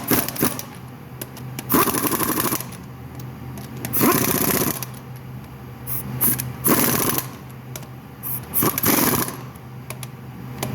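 Impact wrench hammering in four short bursts about two seconds apart, running the wheel's lug nuts down tight.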